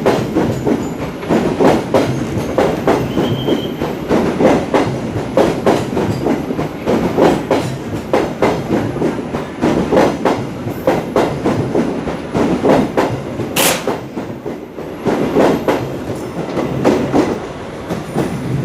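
Train running past, its wheels clattering over rail joints in a continuous stream of clacks, with one sharp knock near the end.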